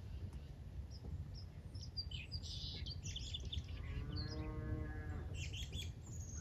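A cow moos once, one drawn-out call about four seconds in, while small birds chirp and a low rumble runs underneath.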